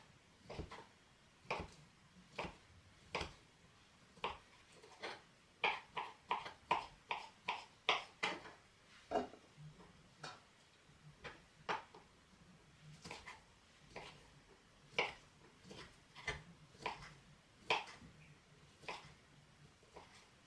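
Kitchen knife chopping on a cutting board, dicing salad ingredients into small cubes: irregular single strikes, with a quicker run of cuts about six to eight seconds in.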